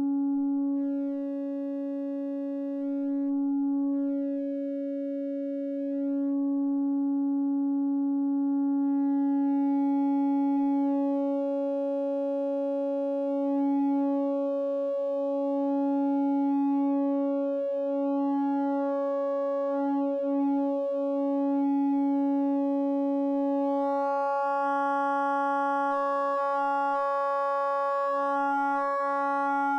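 A Eurorack synth oscillator's sine wave run through a wavefolder. It holds one steady pitch while its timbre keeps shifting: overtones swell and fade as the fold and shift settings are turned, and the tone grows buzzier and brighter near the end.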